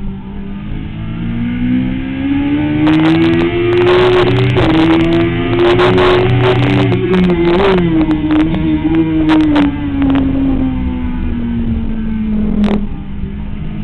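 Sport motorcycle engine on a racetrack lap, heard from an onboard camera. It rises steadily in pitch as the bike accelerates out of a corner, blips briefly about seven and a half seconds in, then falls away as the bike slows for the next corner. Wind buffets the microphone at speed.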